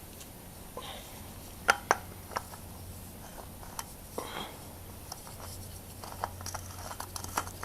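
Scattered light clicks and taps of a new spin-on oil filter being handled and threaded on by hand, with two sharper clicks about two seconds in, over a faint steady hum.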